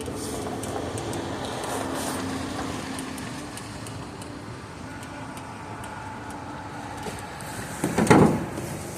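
Steady outdoor background noise with a faint low hum in the first few seconds, and a brief loud noise burst about eight seconds in.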